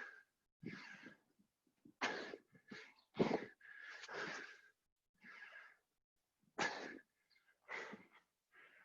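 Heavy, gasping breaths from people exerting themselves doing burpees, one sharp breath roughly every second, some with a faint wheezy whistle.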